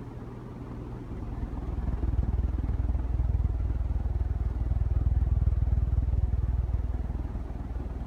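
Hunter Eclipse ceiling fan running, its blade draught buffeting the microphone with a steady, pulsing low rumble that grows louder over the first couple of seconds.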